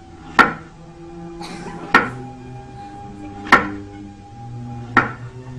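Music with held notes and chords, punctuated by four sharp, ringing knocks about one and a half seconds apart.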